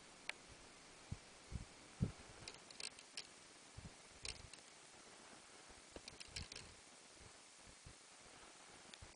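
Near silence, with faint scattered clicks and soft low thumps.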